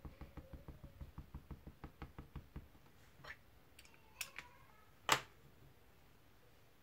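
Quick, light tapping, about five taps a second, of a clear acrylic stamp block being worked against paper and ink pad. After about two and a half seconds the tapping stops. A few small clicks follow, then one sharp knock about five seconds in.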